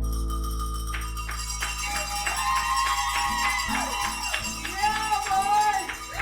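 The last strummed acoustic guitar chord of a song rings on and slowly fades. Hand claps start about a second in, and whooping cheers join them a little later.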